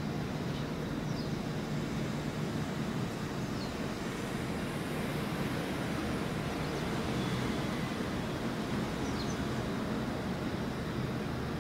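Steady low rumbling drone of a passing container ship's engine heard across the water, with a few faint high chirps over it.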